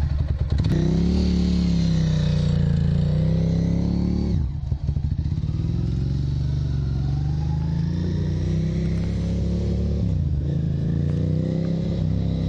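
Motorcycle engine running and revving, its pitch rising and falling as the bike is ridden and the repaired shifter is worked through the gears. The sound drops out briefly about four and a half seconds in, then the revs climb again.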